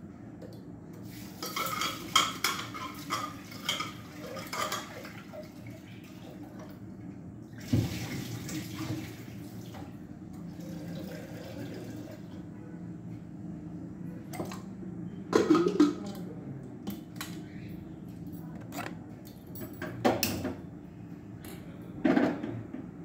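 Tap water running into an aluminium pressure cooker as dal is washed and filled for cooking, with metal clatter and knocks as the pot is handled; near the end the closed cooker is set down on a gas stove with a knock.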